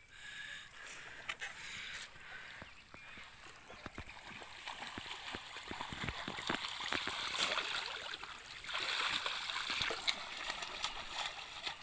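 Shallow muddy water splashing and sloshing as a bamboo-framed push net is shoved through a flooded rice paddy by someone wading, with small splashy clicks throughout. It grows louder about halfway through.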